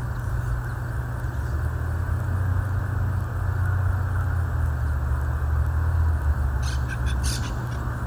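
Monk parakeets giving harsh squawking calls over a steady low rumble, with a quick run of sharp squawks about seven seconds in.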